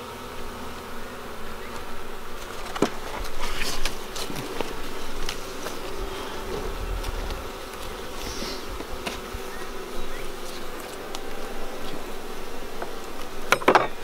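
Honeybees buzzing over an open hive as a steady, many-voiced hum, with scattered light clicks and knocks from wooden frames and a hive tool. There is a brief louder burst near the end.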